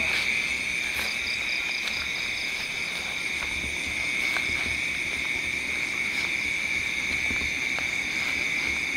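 Steady night chorus of insects and frogs: a continuous high trill, with a short run of faster chirps about a second in.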